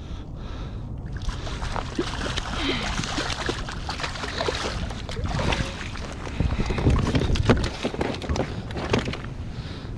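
Water splashing and sloshing as a small striped bass (a schoolie) thrashes at the surface beside a kayak and is grabbed by hand and lifted aboard, with many short sharp splashes and knocks.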